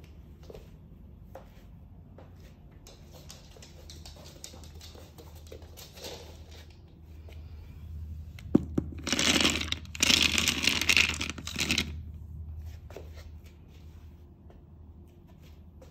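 Dry dog kibble poured into a slow-feeder dog bowl, rattling loudly for about three seconds starting about eight and a half seconds in, with a brief break midway.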